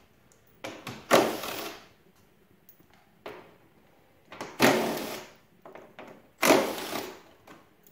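Cordless power driver spinning a 10 mm socket on a short extension in three runs of about a second each, undoing the bolts that hold the lower front support bar, with a few small knocks between.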